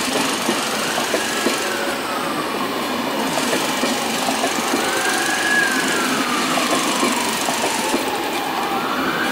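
Railjet passenger coaches rolling past, wheels clicking over the rail joints. Over them a siren wails, rising and falling in pitch about every four seconds.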